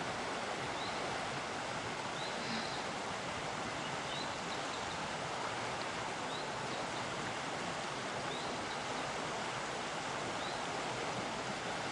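Fast-flowing river rushing, a steady, even sound of moving water. A faint short high chirp recurs about every two seconds over it.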